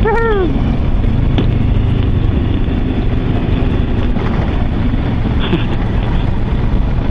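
Kawasaki Versys 650 parallel-twin engine running steadily while riding a dirt track, heard from on the bike with wind and road noise. A brief falling voice exclamation comes right at the start.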